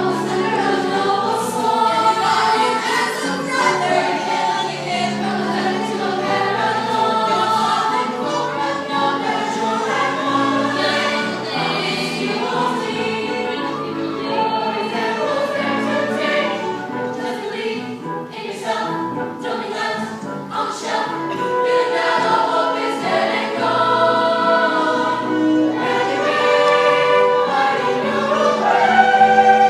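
Middle-school cast singing together as a chorus in a stage musical number.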